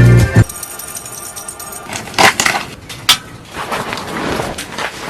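Background music that cuts off about half a second in, followed by a few sharp knocks or crunches and soft rustling of handling.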